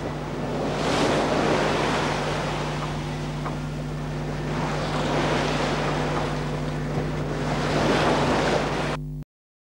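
Sea rushing and splashing along the hull of a sailing yacht under way, with wind buffeting the microphone, swelling and easing in surges. A steady low hum runs underneath, and all sound cuts off suddenly about nine seconds in.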